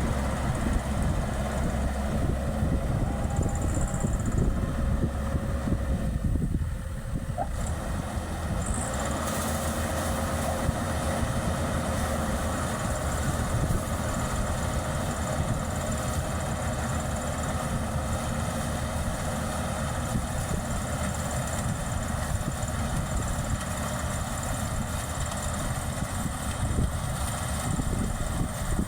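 Maxxi Bimo 102L combine harvester's diesel engine and machinery running steadily while harvesting rice. The sound thins out briefly about six seconds in, then carries on at the same steady level.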